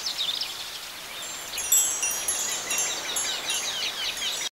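Chimes ringing: many high, overlapping tones that cut off suddenly at the end.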